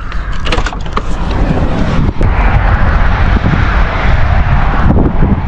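Loud, uneven rushing noise with a deep rumble, growing stronger about two seconds in: wind on the microphone mixed with traffic from the interstate.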